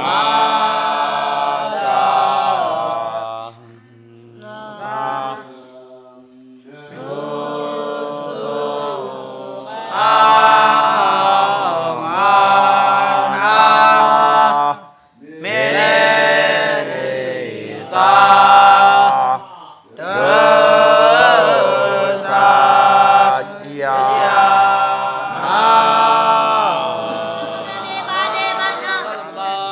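A group of young Buddhist novice monks chanting together in long drawn-out phrases, with short breaks between phrases.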